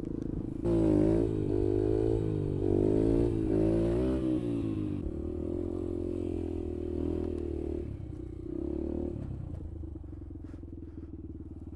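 Yamaha TT-R125's single-cylinder four-stroke engine revving up and down under throttle from about a second in, its pitch rising and falling. It then settles to a steadier run and eases off to a quieter, lower note for the last few seconds.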